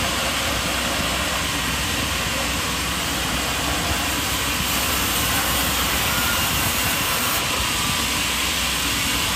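Machinery running with a steady, even noise, with no separate strokes or impacts.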